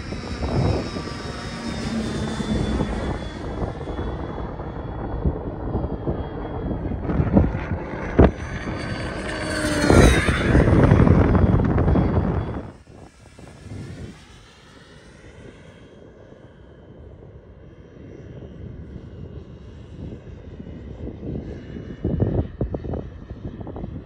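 Kingtech K-30TP model turboprop engine and two-blade propeller of a radio-controlled aerobatic plane flying past, its whine falling in pitch with each pass. A loud close pass comes about ten seconds in; about twelve seconds in the sound drops suddenly to a distant drone that grows louder again toward the end.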